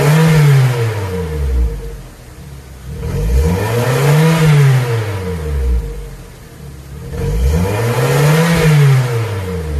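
2006 Suzuki Swift 1.5's four-cylinder engine being revved through an aftermarket header with metal catalytic converter and single-can muffler with left and right outlets: the exhaust note rises and falls back three times, about four seconds apart.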